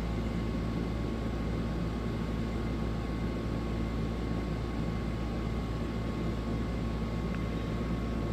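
Steady background hum and hiss with low droning tones and no distinct events: room noise such as a fan or air-conditioning unit.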